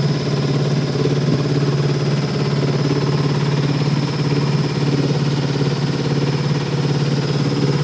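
A small fishing boat's engine running steadily while the boat is underway: a constant low drone that does not change in pitch or level.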